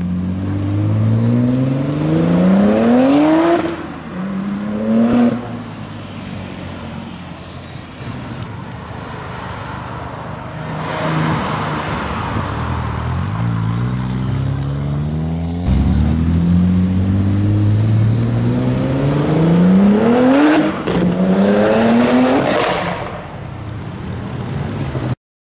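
Tuned Audi S4's 2.7-litre twin-turbo V6 accelerating hard, its engine note climbing steeply through the revs and dropping sharply at each upshift. A first pull and shift come in the opening seconds, with steadier lower-revving running in the middle. A second pair of hard pulls comes later, and the sound then fades as the car moves away.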